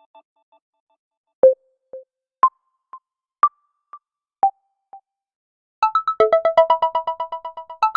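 Samsung Galaxy A51 ringtones playing: a sparse electronic tone of four single plucked notes about a second apart, each followed by a soft echo of itself. About two seconds before the end, a new tone starts with a fast, repeating synth pattern of several notes a second.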